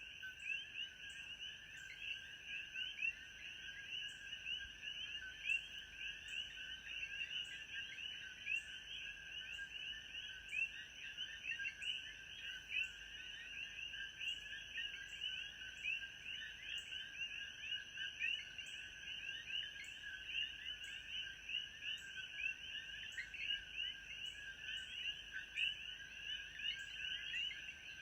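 Dense, continuous chorus of many small birds chirping, the quick high chirps overlapping without pause. A steady high whine and faint regular ticks run beneath it.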